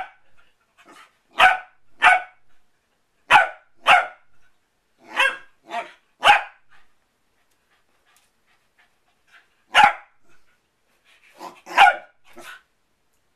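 Corgi puppy barking at a ball: short, sharp barks, mostly in quick pairs, about eleven in all, with a pause of about three seconds in the middle.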